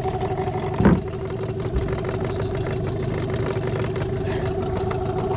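A motor running steadily with a fast pulsing hum, and a single knock about a second in.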